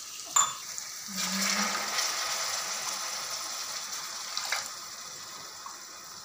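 Water poured from a steel tumbler into a kadai of frying cabbage-tomato masala, gushing in for a couple of seconds from about a second in and then tapering off. Metal clinks of the tumbler come just before the pour and again about four and a half seconds in.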